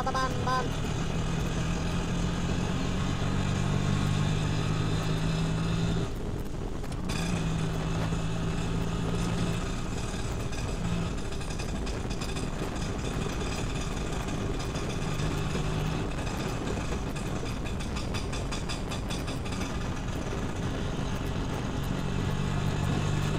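Motorbike engine pulling an open tuk-tuk carriage along a road at a steady pace. Its low hum swells and eases several times as the throttle changes, over a constant rush of road and wind noise.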